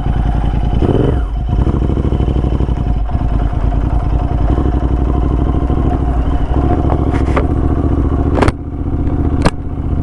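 The parallel-twin engine of a Royal Enfield Interceptor, big-bored to 865cc and fitted with high-flow headers and mufflers, running steadily as the bike is ridden. The engine note dips briefly twice near the end, each time with a sharp click.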